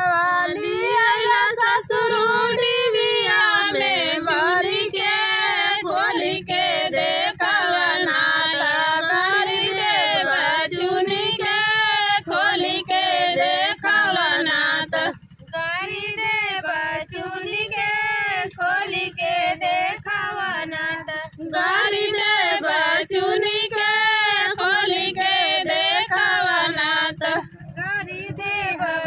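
Women singing a North Indian folk wedding song (mandak geet) in a high, ornamented melody with wavering vibrato. The phrases are long, with short breath pauses.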